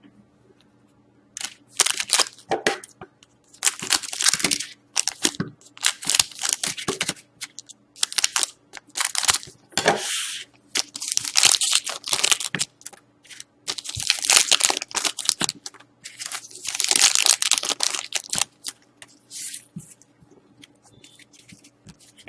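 Trading-card pack wrappers being torn open and crinkled: a run of short scratchy rips and rustles starting about a second and a half in and dying away near the end.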